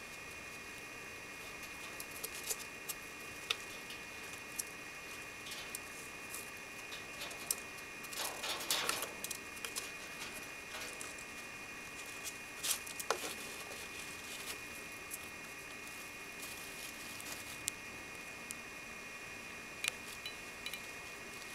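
Pet rats scrabbling about their wire-mesh cage: scattered light clicks and scratches, with a longer scrabbling rustle about eight seconds in and a few sharper clicks around thirteen seconds.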